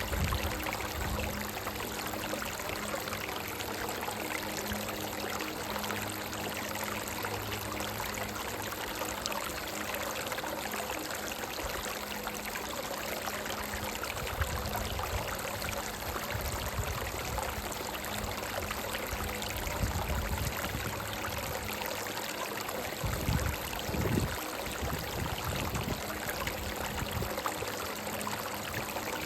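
Shallow brook running over rocks: a steady rush and babble of water, with a few louder low gurgles near the end.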